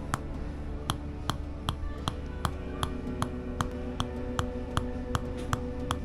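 Rhythmic Thai Tok Sen tapping: a wooden mallet striking a wooden wedge pressed on the body, sharp knocks at a steady pace of about two or three a second. Soft background music plays under the taps.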